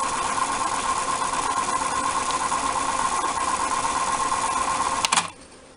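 Pioneer cassette deck rewinding a tape at high speed: a steady whir of the transport and spinning tape. About five seconds in it stops abruptly with a click as the tape reaches its start and the mechanism shuts off.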